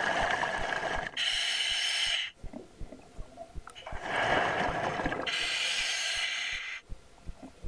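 A scuba diver breathing through a regulator underwater: two full breaths, each a rushing, bubbling exhale and a hissing draw of air, with a pause of about two seconds between them.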